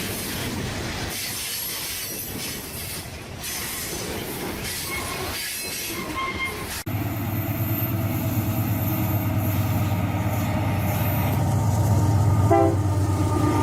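Real train sound effect: a train rolling with brief wheel squeals, then an abrupt cut about seven seconds in to a steady locomotive engine drone that grows louder.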